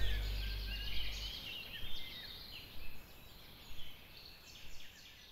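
Songbird singing short, high chirping phrases about once a second, over a faint outdoor background, while the last low note of the soundtrack music fades out about a second in.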